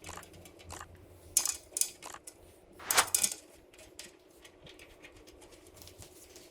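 Scattered light clinks and taps of hard computer-case parts being handled and fitted, with the sharpest clinks about a second and a half and three seconds in.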